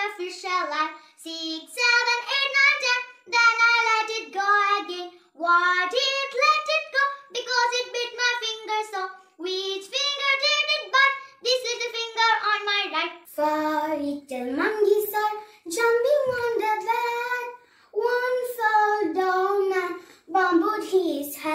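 Young girls singing a children's rhyme solo, without instruments: one girl's voice, then about 13 seconds in a second girl's voice takes over.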